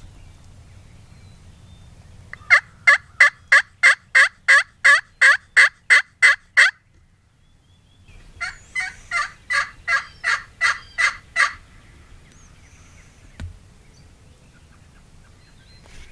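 Hen turkey yelps made on a friction (pot) call with a wooden striker. A run of about a dozen quick, evenly spaced yelps, each falling in pitch, is followed by a short break and a second, slightly softer run of about ten. A single light knock comes a couple of seconds later.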